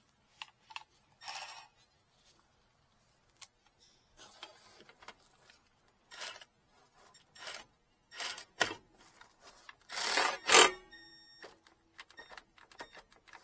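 Hand-tool work on a backup generator engine: scattered metal clicks and scrapes, a louder clatter about ten seconds in, then a short metallic ringing tone.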